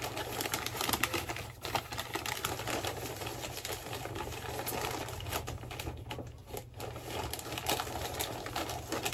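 Wrapping paper crinkling and rustling in a quick, irregular run of small crackles as it is folded around a gift box.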